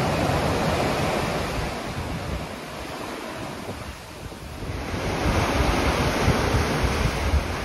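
Sea surf washing in and breaking around the concrete pilings of a pier, with wind buffeting the microphone. The wash dies down about three seconds in and swells again with the next wave.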